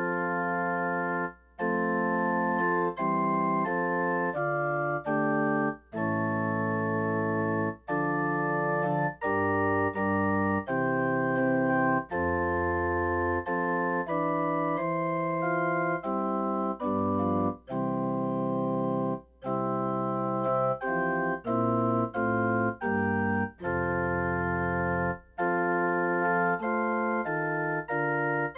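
Organ playing a slow prelude in held chords, each chord sounding steadily and stopping cleanly, with a few brief pauses between phrases.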